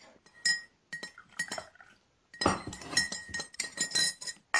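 A teaspoon clinking against a glass teacup: a few light ringing taps, then a quick run of clinks like stirring from about halfway through.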